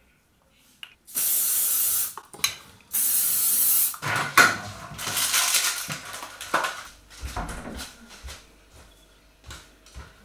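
Two short, loud bursts of hiss, each under a second, followed by irregular clinking and knocking of a plastic bottle and glassware handled on a kitchen counter, fading to a few light knocks near the end.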